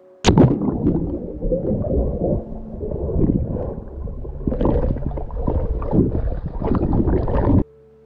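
A splash as the camera goes under, then muffled, rumbling underwater churning and gurgling from a swimmer kicking and a dog paddling nearby, with irregular surges. It cuts off abruptly near the end.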